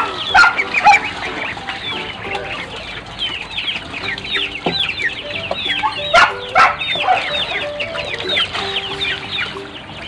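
Chickens and chicks calling continuously: many quick high peeps that fall in pitch, several a second, over lower clucking, with a few sharper, louder sounds near the start and around the middle.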